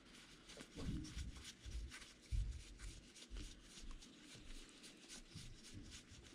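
Baseball trading cards being handled and flipped through by hand: soft rustling of card stock with light clicks and a few dull thumps.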